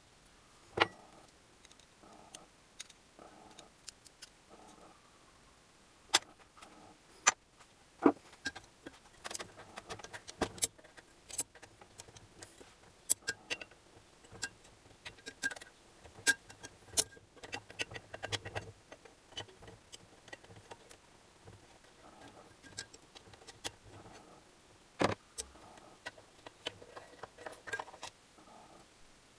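Metal tools and engine parts clinking and knocking during hand disassembly of an engine: a scattered series of sharp clicks and clinks, a few ringing briefly.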